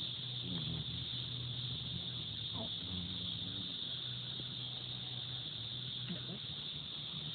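Low buzzing hum of a hovering insect's wings close to the microphone, coming and going as it moves among the flowers, over a steady high insect trill.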